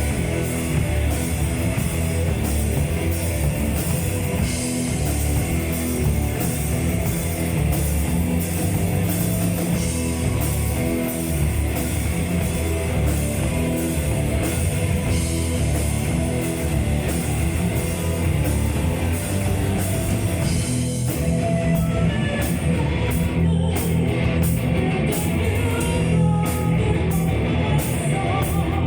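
Heavy metal band playing live: electric guitars over a drum kit, loud and unbroken. In the last several seconds the steady cymbal wash thins into separate hits.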